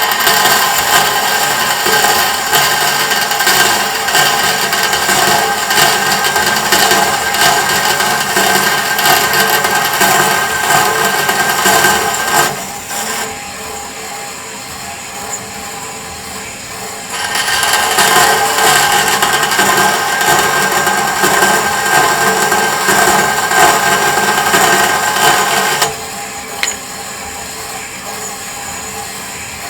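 Bandsaw running and cutting through metal in two long passes, with a steady whine under a harsher cutting noise. Between the passes and near the end the saw runs on more quietly.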